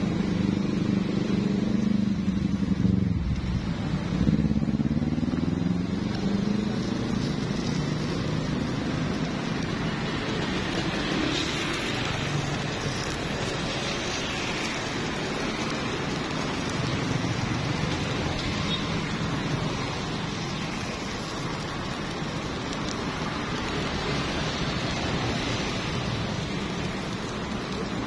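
Passing street traffic: in the first few seconds a motor vehicle engine rises and falls in pitch as it goes by, then a steady rushing noise of traffic continues.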